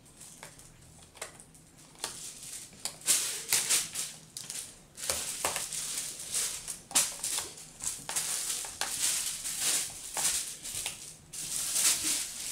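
Handling noise from laptop repair: plastic parts and small screws being moved about, giving irregular crackling, rattling bursts and clicks that start about two seconds in.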